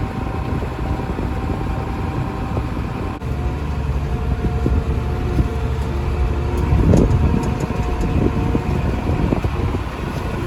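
Farm tractor pulling a grain cart, its engine running steadily with a low rumble and a few steady whining tones above it, a little louder about seven seconds in.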